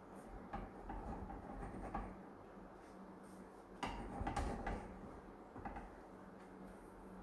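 Frying pan moved and rocked on a gas hob's metal grate to spread the egg, giving light knocks and scrapes, loudest about four seconds in, over a steady low hum.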